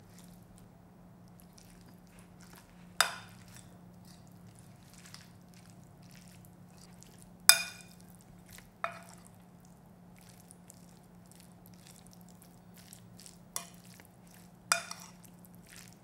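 Metal spoon clinking against a ceramic bowl while bibimbap is mixed: about five sharp, briefly ringing clinks, the loudest about halfway through, with soft stirring between.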